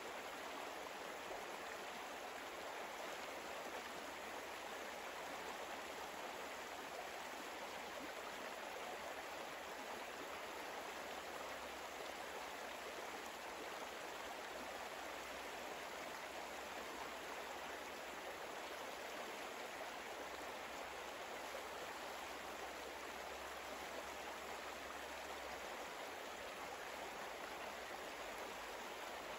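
Steady running-water ambience, a continuous stream-like rush with no change in level.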